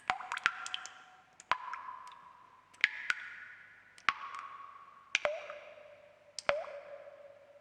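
Water drops falling into water one after another, roughly once a second and sometimes in quick pairs. Each is a sharp plink followed by a ringing tone that fades over about a second, its pitch changing from drop to drop.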